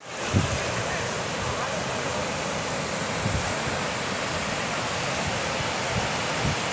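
Shallow river rushing over a stony riffle: a steady hiss of running water. Wind knocks on the microphone a few times as short low thumps.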